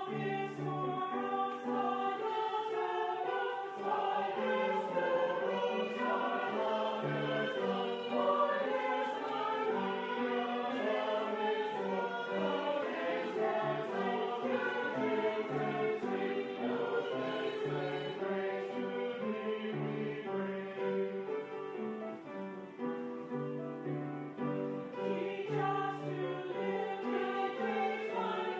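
A choir singing, with sustained notes that change steadily.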